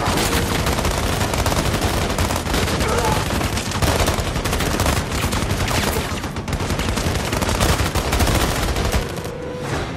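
Film gunfight: many guns firing rapidly at once in dense, continuous volleys, with bullets splintering wood; the shooting breaks off about nine seconds in.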